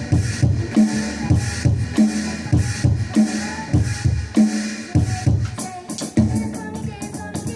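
A band playing instrumental music with a steady drum-kit beat, low drum hits about every 0.6 seconds under cymbal wash, with a run of sharper, quicker hits in the second half.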